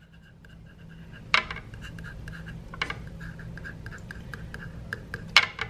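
Ballpoint pen scratching on a paper notepad as capital letters are written by hand, in short strokes with three sharper ticks among them.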